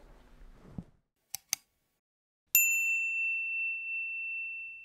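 Subscribe-button sound effect: two quick clicks, then about a second later a single high bell ding that rings on and slowly fades.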